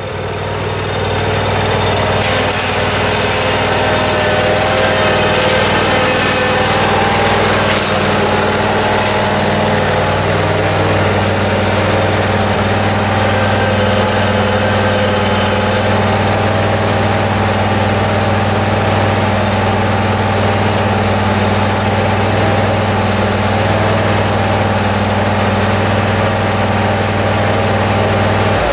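Engine of a new Ferris mower running steadily.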